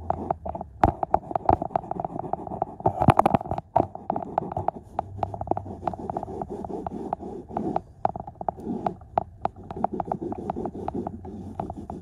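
Hand scrubbing the car's floor carpet with a cleaning pad close to the microphone: a rubbing, scouring noise broken by many irregular clicks and knocks.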